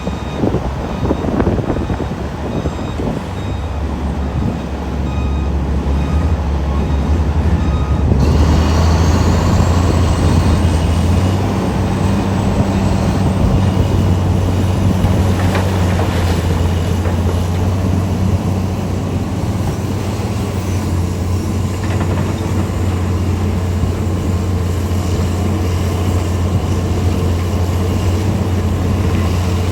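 Large diesel engines of a mining excavator and haul trucks running with a deep, steady drone that grows louder a few seconds in. A reversing alarm beeps repeatedly at first and stops about eight seconds in.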